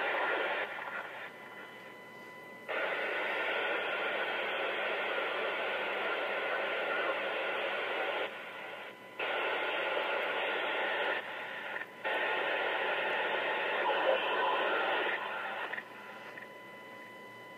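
Live police scanner feed streamed online, playing radio static in several bursts of one to several seconds each, with short breaks between them.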